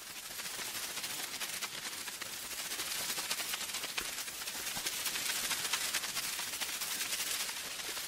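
Steady crackling hiss: dense small clicks over a high hiss, a little louder in the middle.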